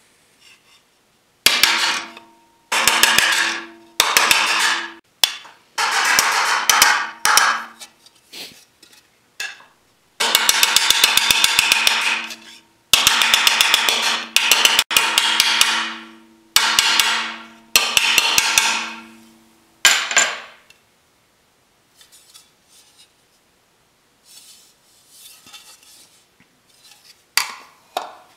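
Rapid, sped-up hammer taps on thin aluminum sheet over a steel dolly, setting a body line in a motorcycle fender. The strikes come in quick runs with a ringing tone under them. The hammering stops about twenty seconds in, leaving only a few faint knocks of the panel being handled.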